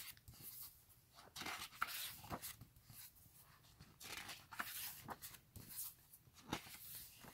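Pages of a large photo book being turned one after another: faint paper swishes and rustles, several in a row.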